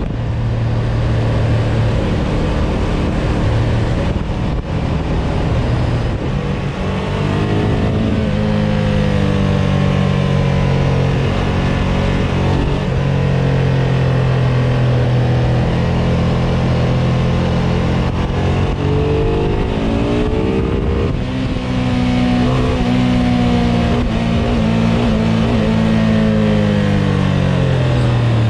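Ducati ST sport-tourer's L-twin engine under way, its pitch climbing as it accelerates about a third of the way in and again past the middle, holding high, then falling off near the end. Steady wind noise over the microphone runs beneath it.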